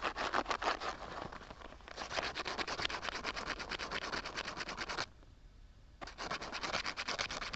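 Sandpaper rubbed quickly back and forth over a motor starter's copper contact strips, scouring off the black carbon deposit. The strokes come fast and even, with a pause of about a second about five seconds in.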